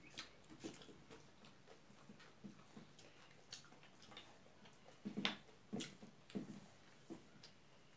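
Quiet mouth noises of people eating with their hands: scattered chewing clicks and lip smacks, with a cluster of louder smacks about five seconds in.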